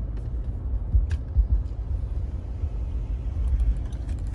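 Low, steady rumble of a car heard from inside its cabin as it rolls slowly along.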